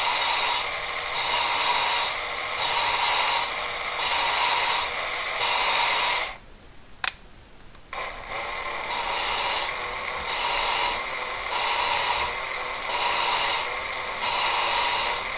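A valve in a VW 2-litre air-cooled cylinder head is being ground against its hard sintered seat with lapping paste, driven by a drill. It makes a steady rhythmic scraping that swells about once every second. The grinding stops for a moment with a click about six seconds in, then carries on.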